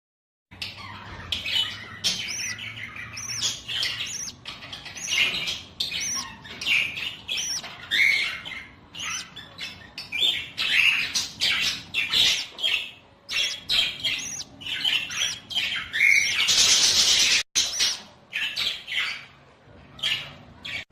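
A flock of budgerigars chattering, a dense stream of short high chirps and squawks overlapping one another. Near the end a louder rushing noise covers the chirps for about a second, then the sound cuts out for an instant.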